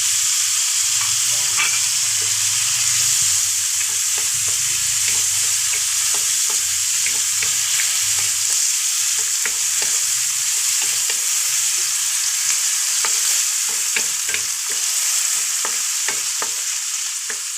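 Chopped ginger and tomatoes sizzling as they sauté in hot oil in a pan, with a steady hiss and frequent small crackles and pops.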